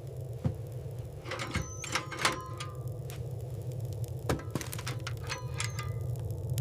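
Wood fire crackling in an iron stove: irregular sharp clicks and pops over a low, steady rumble.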